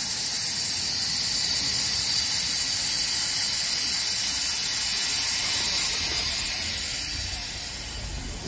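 Steam hissing loudly and steadily from an Italian FS Gruppo 700-series steam locomotive, easing off over the last couple of seconds.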